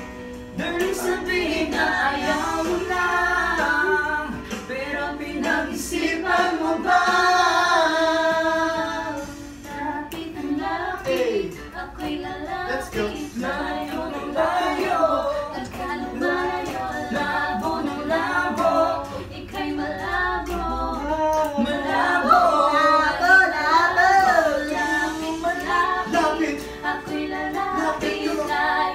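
Karaoke: amateur singers singing into microphones over a recorded backing track, amplified through the room's speakers.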